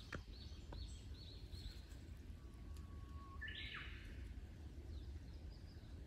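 Wild birds singing: a quick run of short high chirps in the first two seconds, then a held whistle that breaks into a brief burst of notes about halfway through, with fainter high notes later. Under it runs a steady low rumble of background noise.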